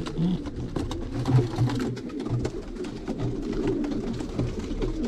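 Domestic pigeons cooing, a low rolling coo repeated over and over by several birds.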